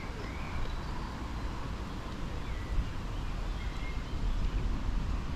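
Wind buffeting the microphone, a steady low rumble, with a few short, faint bird chirps over it.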